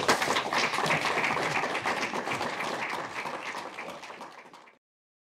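Audience applauding, slowly dying down, then cut off abruptly near the end.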